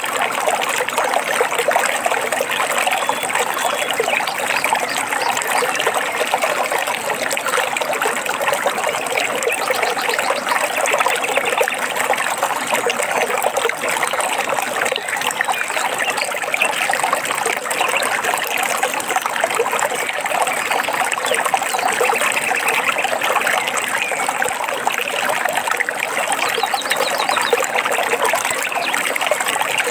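Small stream trickling and babbling steadily over stones, with a few faint bird chirps now and then.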